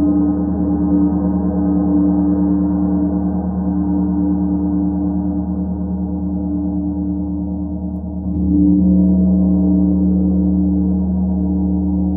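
Large Starchild gong played with soft felt mallets, ringing as a deep, sustained drone of several steady low tones. It fades a little, then swells louder again about eight seconds in as it is played afresh.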